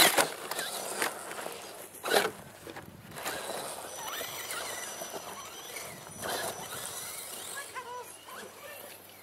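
Radio-controlled scale crawler truck tumbling off a rock onto its side, a loud clatter at the start, with another sharp knock about two seconds in. Faint voices near the end.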